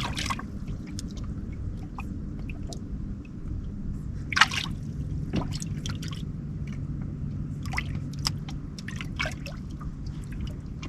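Small water sounds of lapping and dripping, with scattered short clicks and splashes, the sharpest about four and a half seconds in, over a low steady hum.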